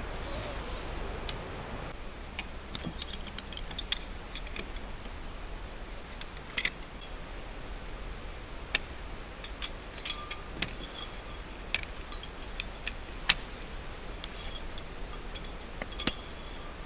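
Scattered, irregular light metallic clicks and clinks from a folding camping cot's metal poles and leg brackets being handled and taken apart, over a steady low background hum. The clicks begin about two seconds in.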